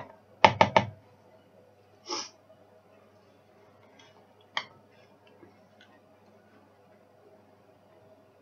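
A spoon stirring a thick, sticky granola mix of oats and seeds in a large mixing bowl: three quick knocks against the bowl about half a second in, a short rustle about two seconds in, a single click later, then only faint ticks of stirring.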